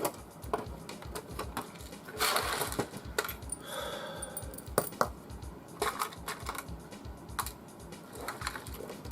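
Small metal screws clicking and clinking as they are handled and tried in a screw hole, with a rough scrape about two seconds in and a short metallic ring around four seconds in.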